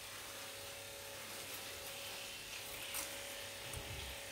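Faint steady hum of a small electric motor over a low hiss, with a few light clicks.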